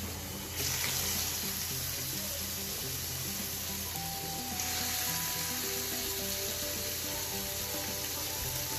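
Rib-eye steaks sizzling in hot oil in a frying pan on high heat. The sizzle jumps louder about half a second in and again about four and a half seconds in, as a second and then a third raw steak go into the pan.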